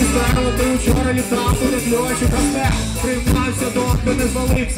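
Live band music with a steady beat: electric guitar, trombone and drums playing through the stage PA.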